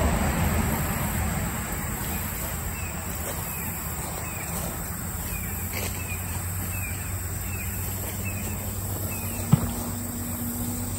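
Outdoor ambience: a steady high insect drone, and a road vehicle passing whose low rumble fades over the first two seconds. A bird repeats a short chirp about every half second, and there is a single sharp knock near the end.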